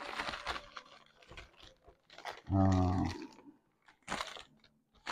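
Newspaper and paper packing rustling and crumpling as it is pulled from a shipping box and unwrapped, with a sharp tearing rustle a little after four seconds. A short hummed voice sound comes about halfway through.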